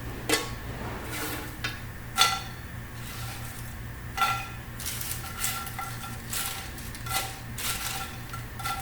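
Crisp oven-baked homemade corn flakes crackling and rattling as they are scooped and handled, with light clinks that ring briefly, about one a second.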